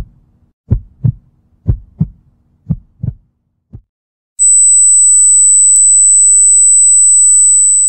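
Heartbeat sound effect: low double thumps about once a second, ending after about three seconds. Then, about four and a half seconds in, a loud, high-pitched steady test-pattern beep starts, with a brief click partway through, and begins to fade near the end.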